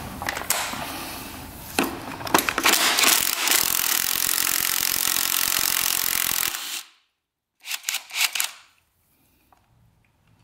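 Handheld power tool running steadily for about four seconds, then cutting off suddenly, followed by three short bursts of it. Before it, light clicking and scraping of hand tools on metal.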